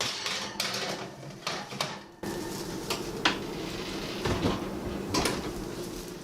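Kitchen clatter as a metal cookie sheet of pecans goes back into the oven: several sharp metallic knocks and clicks over a steady low hum.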